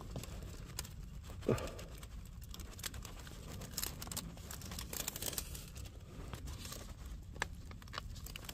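Pipe lagging being handled and fitted around caravan water pipes: crinkling, tearing and rustling with many small scattered clicks, and one short louder knock about a second and a half in.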